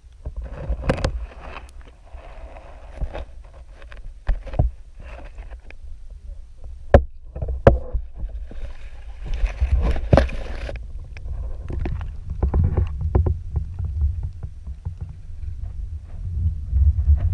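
Muffled water movement and a low rumble through a GoPro's waterproof housing, with scattered sharp knocks and clicks against the housing.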